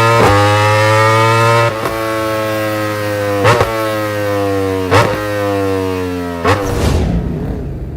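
Motorcycle engine running at a steady speed, its pitch slowly sinking, with a sharp pop about every second and a half; it fades away near the end.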